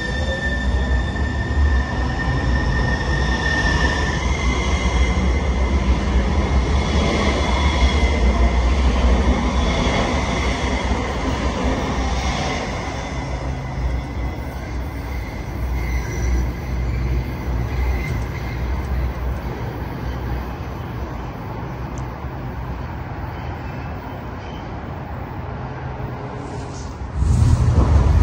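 Sound Transit Link light rail train running along a curved elevated track, its wheels giving a high steady squeal over a low rumble that eases off as it moves away. About a second before the end, a louder low rumble starts suddenly.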